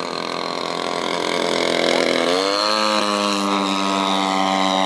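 Engine and propeller of a radio-controlled P-51 Mustang scale model flying a low pass, a steady buzzing note whose pitch drops a little over two seconds in and then holds steady.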